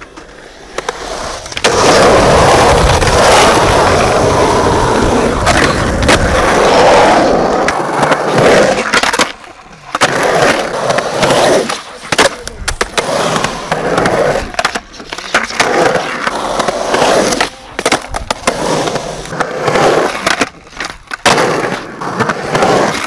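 Skateboard wheels rolling loudly over a concrete skatepark, a long steady roll and then shorter runs broken by the sharp clacks and slaps of the board popping and landing on tricks.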